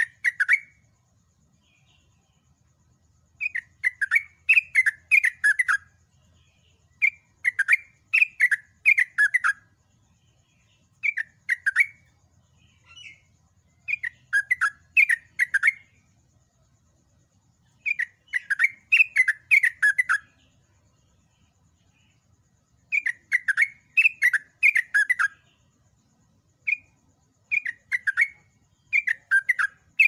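Yellow-vented bulbul (trucukan) singing: repeated bubbly phrases of five or six quick chirping notes, a phrase every two to four seconds with short pauses between.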